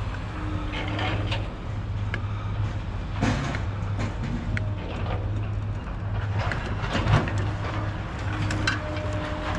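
A steady low engine hum, with scattered clicks and knocks of scrap being handled; the sharpest knocks come about three seconds in and about seven seconds in.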